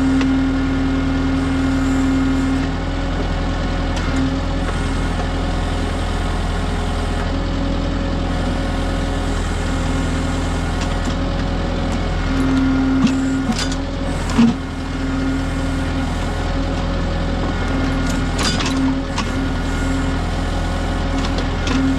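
Kubota M6060 tractor's diesel engine running steadily under backhoe work, with a held tone that comes and goes as the hydraulics are worked. A sharp clunk about two-thirds of the way in and scraping knocks later on are the backhoe bucket working through rocky ground.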